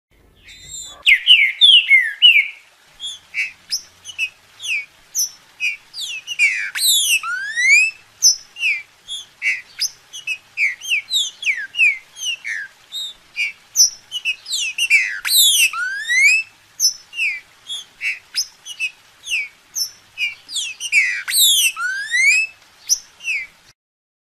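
Green-winged saltator (trinca-ferro) singing: a long run of short clear whistled notes, broken three times by a louder phrase of quick sweeping notes. The song starts about a second in and stops shortly before the end.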